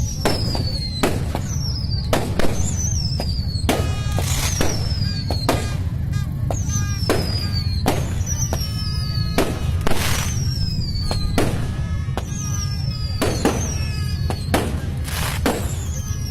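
Aerial fireworks going off in quick succession, with many sharp bangs. A falling whistle repeats about every one and a half seconds, over a steady low rumble.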